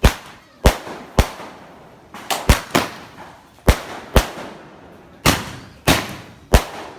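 Fireworks going off: about ten sharp bangs at uneven intervals, some in quick pairs, each followed by a short echoing tail.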